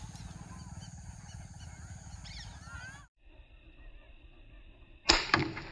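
Steady low outdoor rumble with a few faint bird chirps, cut off abruptly about three seconds in. Near the end comes the sharp crack of a PCP air rifle shot, followed almost at once by a smaller second crack.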